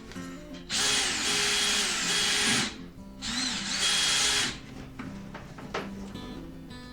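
Power drill boring out a stripped exhaust-manifold bolt hole in an LS engine's aluminium cylinder head, to take a helical thread insert. It runs in two bursts with a high whine: the first lasts about two seconds, and the second, about a second and a half long, follows after a short pause.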